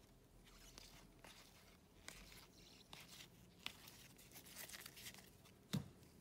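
Faint rustling and light clicking of trading cards being shuffled and sorted by gloved hands, with a soft knock near the end as the cards are set down on a stack.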